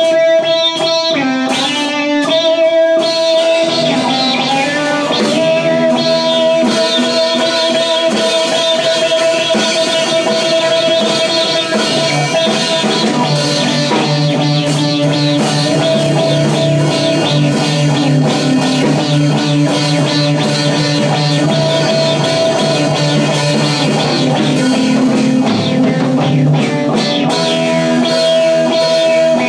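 Electric guitar playing a blues-rock jam over a drum kit, with long held lead notes.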